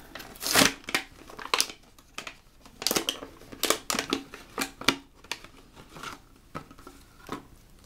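Scissors cutting into a thin plastic pouch, with irregular crinkling and tearing of the plastic packaging as it is opened.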